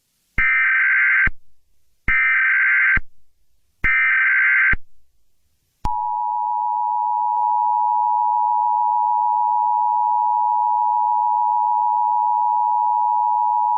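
Emergency Alert System alert opening: three short bursts of SAME header data tones, about a second each and evenly spaced, then the steady two-tone EAS attention signal starting about six seconds in.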